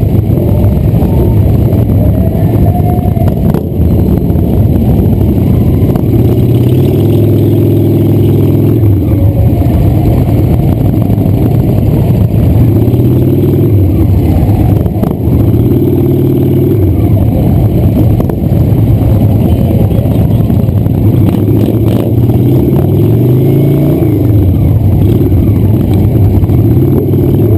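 Motorcycle engine running loud at low speed in slow traffic. It rises and falls in pitch several times as it pulls away and eases off, with other motorcycles running close around it.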